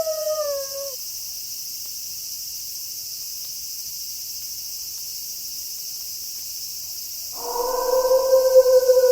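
Wolf howls. The first howl slides down and trails off in the first second, leaving only a steady high background hiss. About seven seconds in, a new long howl starts at a lower pitch and holds, dipping slowly.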